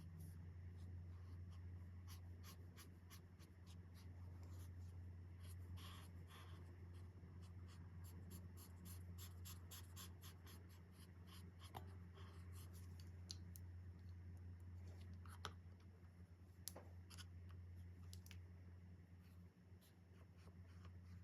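Faint scratching of alcohol marker tips on coloring-book paper: many quick short strokes, densest in the middle, with a few sharper taps later on, over a steady low hum.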